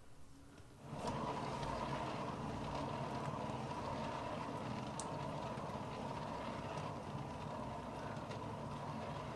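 Hand-held blow dryer switched on about a second in, then running steadily with an even whine.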